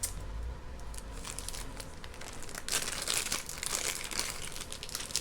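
Plastic bag crinkling in irregular bursts as pieces of jewelry are handled and pulled out, with a longer stretch of crinkling around the middle.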